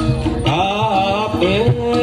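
Live jaranan accompaniment music: low drum strokes under a wavering, heavily ornamented melody line that enters about half a second in.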